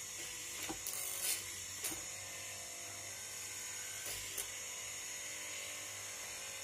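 Bull Tool 750-watt hollow-chisel wood mortiser running with a steady motor whine, with several short knocks as the lever drives the chisel into the timber and the piece is shifted.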